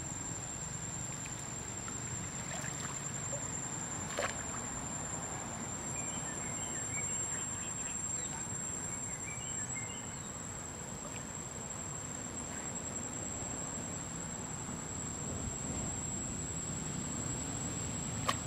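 Steady high-pitched insect drone over a low outdoor rumble, with a few faint chirps around the middle and two brief sharp ticks, one about four seconds in and one near the end.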